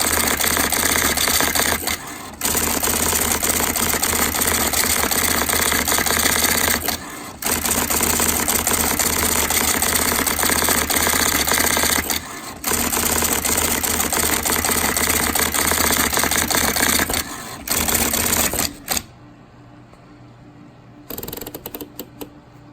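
IBM Electronic Typewriter Model 85 typing out a stored document on automatic playback: a rapid, continuous clatter of keystrikes in runs of about five seconds, broken by short pauses. The typing stops near the end, with a few scattered clicks after.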